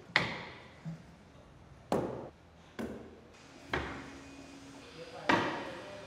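Six uneven, hard blows struck on wood by a hand tool, each ringing briefly; the first and last are the loudest.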